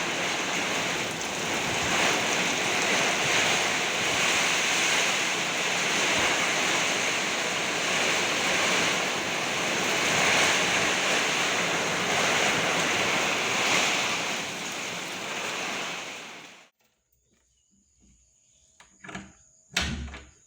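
Heavy rain pouring steadily, cutting off suddenly about three-quarters of the way through, followed by a few faint knocks.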